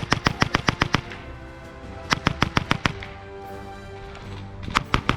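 Three bursts of rapid, loud automatic-fire reports, about seven shots a second, from a B.O.S.S. blank-firing gunfire sound simulator. The first burst ends about a second in, the second runs from about 2 to 3 seconds, and the third starts near the end. Background music plays underneath.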